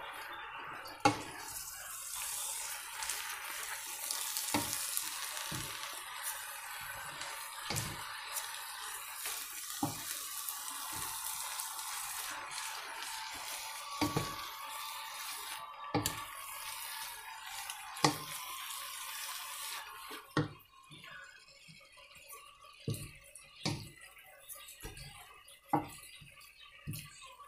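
Wet, soaked rice vermicelli sizzling in a hot wok with stir-fried vegetables, while a spatula knocks against the pan every second or two as the noodles are turned. The sizzle dies down after about twenty seconds, leaving the spatula knocks.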